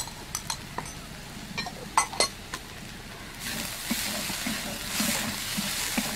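A few light clicks, then a little past halfway a flat metal spatula starts stirring and scraping masoor dal lentils frying with spices in a metal kadai: sizzling with rhythmic scraping strokes, about three or four a second.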